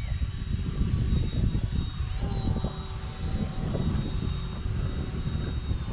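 Electric ducted-fan RC jet (E-flite Habu, 70 mm fan) flying overhead, its fan a thin steady high whine that lifts briefly about two seconds in. A heavy low rumble of wind on the microphone is louder than the jet.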